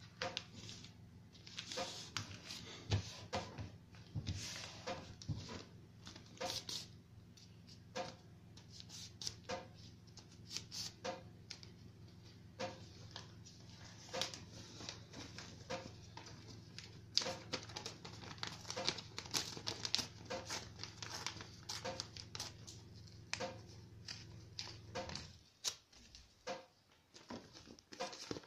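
Strip of paper being folded and creased by hand on a wooden table: irregular crinkles and dry clicks, over a steady low hum that stops near the end.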